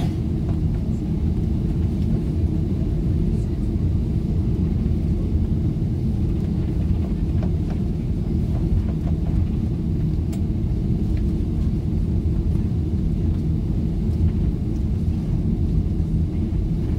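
Steady low rumble inside the cabin of a jet airliner as it taxis, with the engines and the rolling wheels heard through the fuselage. A few faint clicks sound over it.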